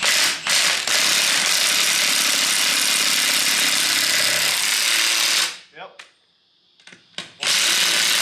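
Cordless impact wrench running on the nuts of a tractor crane's rear wheel, tightening them: a short burst first, then one continuous run of about four and a half seconds that stops abruptly, and another short burst near the end.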